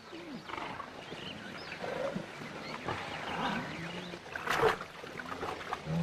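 Wild animals growling and snarling: a string of short calls that rise and fall in pitch, with a louder harsh snarl about four and a half seconds in.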